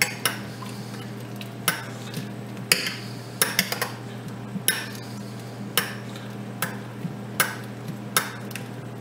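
Metal spoon clinking and scraping against a stainless steel saucepan while fondant potatoes are basted with melted butter and stock: sharp, irregular clinks about once or twice a second over a steady low hum.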